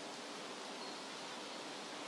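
Shallow stream running over rocks: a steady, even rush of water, with a faint short high note about a second in.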